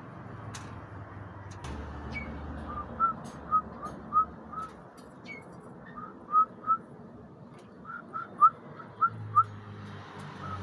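Oriental magpie-robin giving short, rising whistled notes in loose groups of three to five, about a dozen in all.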